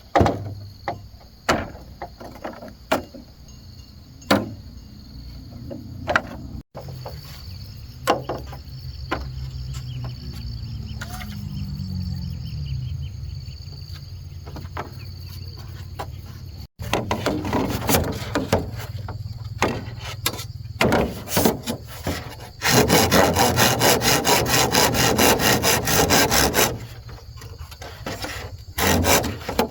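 Bamboo being worked with hand tools: scattered sharp wooden knocks, then from a little past the middle a steady run of sawing strokes through bamboo, which pauses briefly and starts again near the end.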